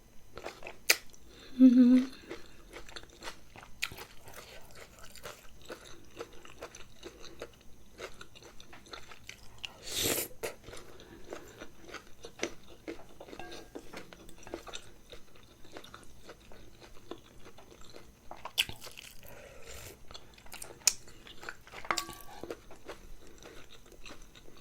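Close-up eating sounds: a person chewing and crunching a mouthful of food in irregular bites, with a brief low hum about two seconds in and a louder crunch about ten seconds in.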